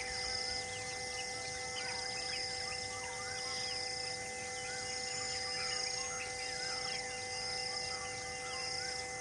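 Forest ambience of many birds chirping and calling, a repeated high call about once a second, and a steady high insect drone. Underneath sit a few steady held tones, like a sustained musical drone.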